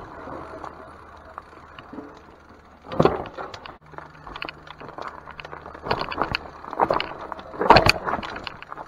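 Electric mountain bike ridden over a rough trail: tyres rolling on dirt with clattering knocks and rattles from the bike over bumps, loudest about three seconds in and again from about six seconds in.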